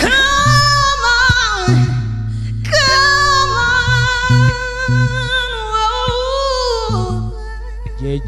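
A woman singing live, holding long drawn-out notes with vibrato, over short repeated low accompanying notes from the band.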